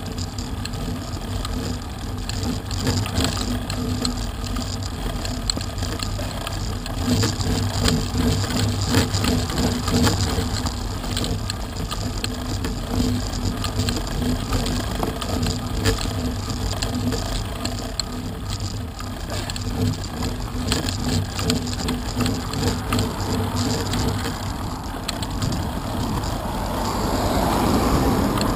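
A road bike climbing a coarse country lane, picked up by a camera mounted on the bike: a steady rumble and hum of tyres on the rough tarmac with many small rattles. Near the end a car comes up from behind, gets louder and passes close.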